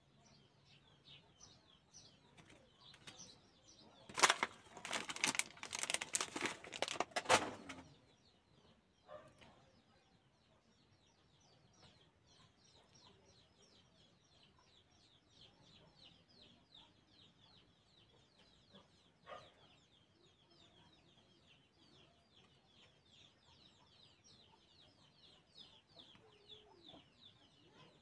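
Trading cards and foil card packs handled: a dense, loud crackling and rustling lasting a few seconds, about four seconds in, then a single click later on. Faint, rapid bird chirping runs underneath.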